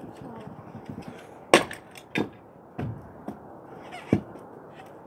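Stunt scooter landing and knocking on pavement during trick attempts: one loud, sharp clack about a second and a half in, followed by three smaller knocks.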